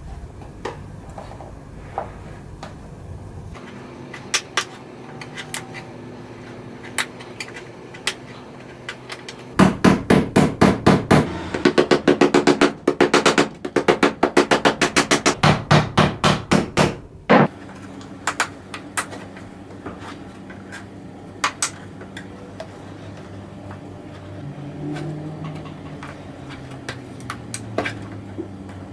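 A small hammer rapidly tapping a flat metal prying tool driven under staples in a plywood lid, about five strikes a second for roughly eight seconds in the middle. Before and after, scattered clicks and scrapes of the tool working staples loose.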